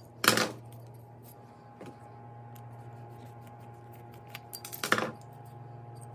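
Metal-on-metal clinking of a flathead screwdriver working a stuck screw in the spotlight's aluminium housing: two short bursts of clatter about four and a half seconds apart, with a few light ticks between, over a faint steady hum.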